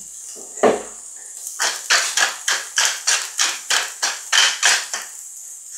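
Wooden pepper mill grinding peppercorns in a quick run of about a dozen short grinding strokes, three or four a second, after a couple of single turns at the start.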